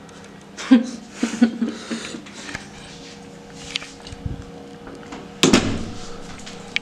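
A loud sudden thump in a small room about five and a half seconds in, after a few brief voice sounds and soft clicks; a faint steady hum runs under the second half.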